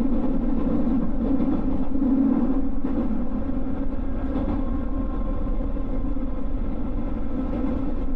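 JR West 221 series electric train, a steady even hum heard from the cab.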